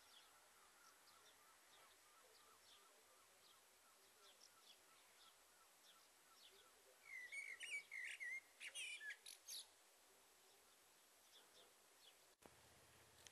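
Faint birdsong: small birds chirping, with a louder burst of twittering song from about seven to ten seconds in. Near the end the background changes abruptly to a faint low hum.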